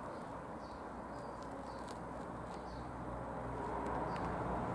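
Quiet room tone: a steady low hiss that swells slightly near the end, with a few faint, short high chirps scattered through it.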